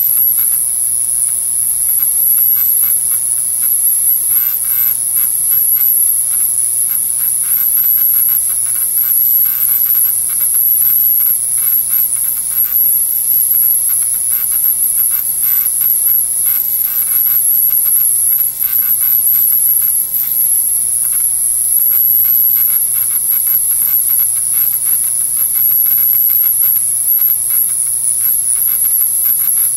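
Ultrasonic cleaner running: a steady, piercing high-pitched whine that wavers slightly, over a faint low hum.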